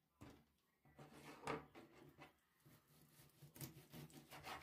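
Kitchen knife cutting through a raw chicken thigh on a plastic cutting board: short sawing, scraping strokes of the blade, the loudest a little after a second in, with a quick run of strokes near the end.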